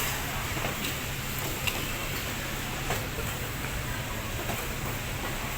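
Steady low hum under a background din, with a few faint clicks and knocks.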